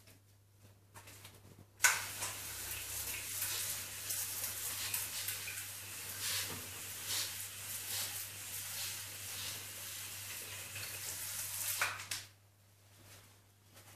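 Hand-pump pressure sprayer with a trigger nozzle spraying a fine mist in a hiss that sets in sharply about two seconds in and cuts off about two seconds before the end.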